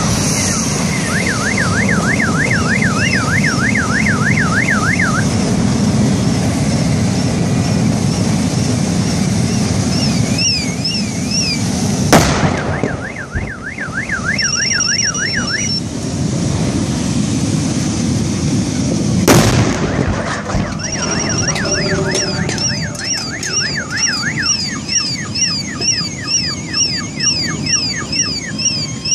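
Gas cylinders from an overturned truck burning with a steady rushing roar, while several car alarms warble and sweep up and down in pitch. Two loud bangs about seven seconds apart, the first about twelve seconds in, are gas cylinders exploding in the fire.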